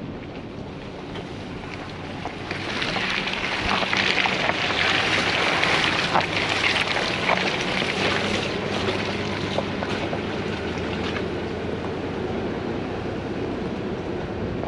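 Pickup truck crawling along a rough, muddy dirt track: a steady low engine hum under the hiss and splatter of the tyres through mud and wet ground, with scattered clicks of stones and debris. The tyre noise swells about two and a half seconds in and eases off around nine seconds.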